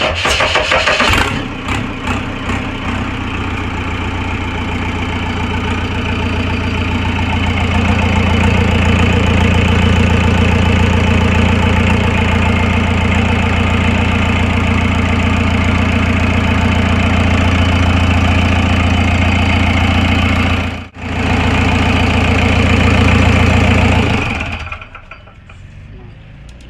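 Repaired JCB diesel engine cranked by its starter, catching within about a second and then running steadily. It runs a little faster and louder after about eight seconds, breaks off for an instant near 21 seconds, and is shut down about 24 seconds in.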